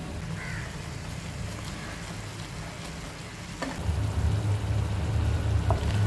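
Thick jamun jam sizzling and bubbling in a nonstick frying pan, a crackling hiss as it reduces. A low rumble grows louder about four seconds in.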